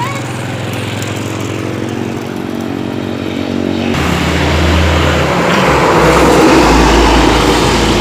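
A steady engine hum, then, from about four seconds in, a heavy vehicle, most likely an intercity bus, passing close. Its deep engine rumble and road roar swell to their loudest near the end.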